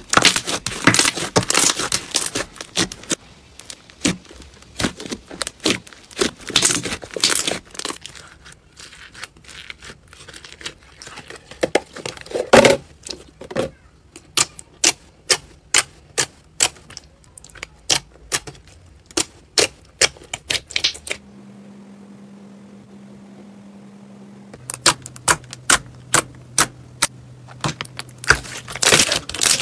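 Hands squeezing, poking and pressing thick slime, giving rapid runs of sharp clicking and popping as trapped air bursts. Partway through there is a quieter few seconds with only a faint low hum before the clicking resumes.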